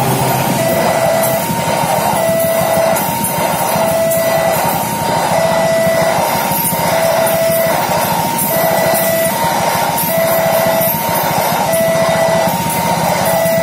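Level-crossing warning alarm sounding a steady alternating two-tone signal, one high-low cycle about every second and a half. It plays over the noise and clatter of a passing train's wheels on the rails.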